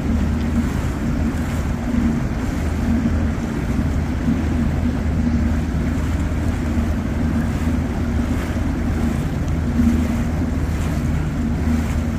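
A boat's 90-horsepower outboard motor running at a steady, unchanging pitch, with water and wind noise on the microphone.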